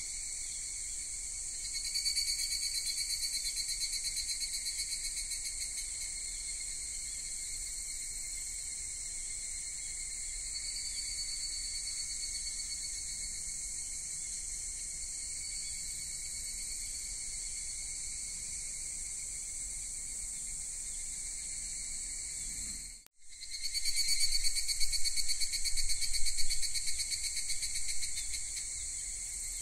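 Insects trilling steadily in a high pitch, with a fast pulsing texture. The trilling swells louder about two seconds in and again in the last quarter, and the sound cuts out for a moment just before that second swell.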